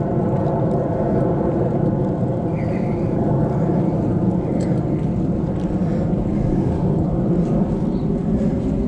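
Steady low rumble of wind on a bike-mounted GoPro and tyre noise from a beach cruiser bicycle riding along, with a few faint high chirps now and then.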